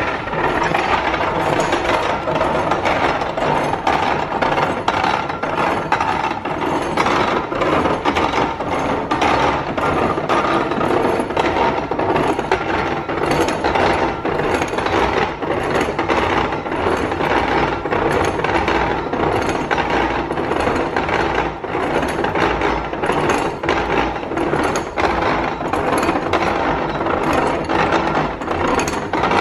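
Antique hand-cranked apple grinder of a cider press being cranked, its flywheel, gears and wooden grinder turning with a continuous rapid, even clatter and rubbing of wood and metal. It is running empty, freshly oiled, in a test run after its restoration.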